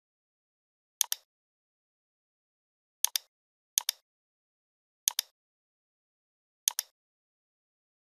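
Computer mouse clicking five times at uneven intervals, each click a quick double tick of button press and release, with silence between.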